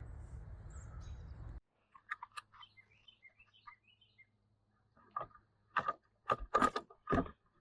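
Faint bird chirps, then a few sharp knocks and clicks in quick succession.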